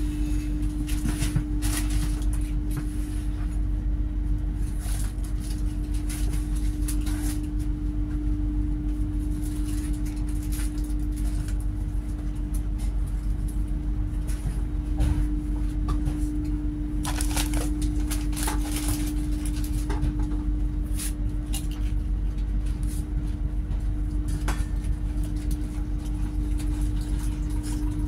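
Running noise heard inside a GWR Class 800 express train at speed: a steady low rumble of the wheels on the rails with a constant hum, and scattered light clicks and rattles.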